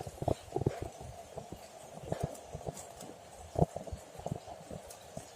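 Irregular short taps and knocks, uneven in spacing and strength, with one louder knock a little past halfway.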